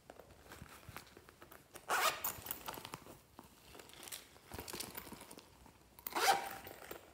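Zipper on a pink fabric pouch being pulled, with two loud zips about two seconds in and again near the end, and quieter rustling of the pouch between.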